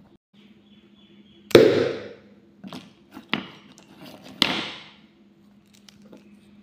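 Homemade rubber-band pen gun firing pen refills into a cardboard box: four sharp snapping hits within about three seconds, the first and last loudest, each with a short hollow ring. A faint steady low hum runs underneath.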